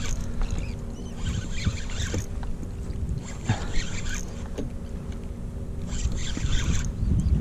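A spinning reel being wound in three short spells of about a second each, over a steady low rumble, as a hooked bass is brought in to the kayak.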